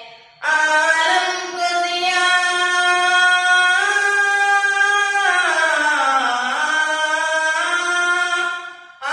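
A boy singing a naat unaccompanied. After a brief pause at the start, he sings one long phrase of drawn-out notes that dips lower in pitch about halfway and climbs back up, fading just before the end.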